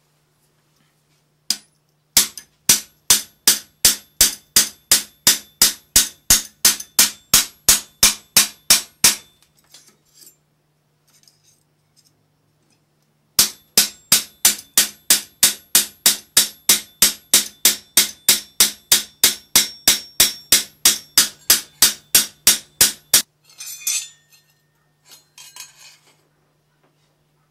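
Hammer blows on sheet metal over a stake in repoussé work, shaping a forged acanthus leaf: two steady runs of ringing strikes, about three a second, the first about seven seconds long and the second about ten, with a pause between. A few light clinks follow near the end.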